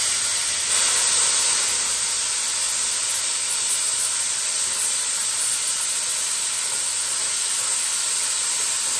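Plasma cutter hissing steadily as its arc and air jet cut through the steel deck of a brush hog rotary mower.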